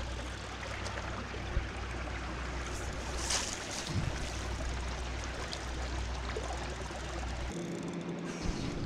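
Steady rushing noise of lake water lapping at the shore, with a low rumble underneath that cuts off abruptly about three-quarters of the way through. After that a faint steady hum comes in.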